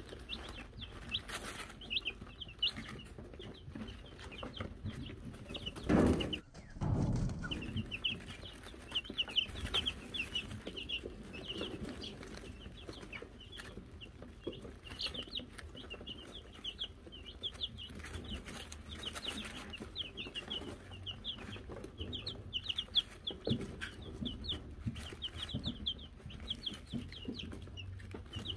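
Wyandotte chicks peeping constantly, many short high peeps that fall quickly in pitch and overlap. About six seconds in there is a loud, low thump and rustle lasting a second or so.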